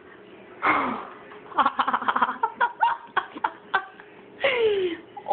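A person laughing: a breathy burst, then a run of quick short pulses, ending in a falling outbreath near the end.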